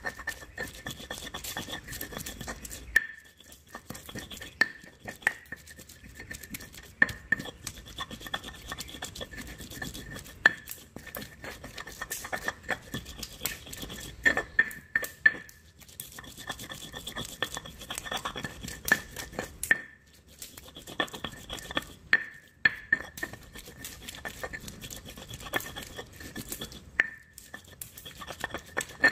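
Stone pestle grinding wet chilli spice paste in a stone mortar (ulekan and cobek): continuous gritty rubbing and scraping, broken by frequent sharp knocks of stone on stone. The harder knocks leave a brief high ring.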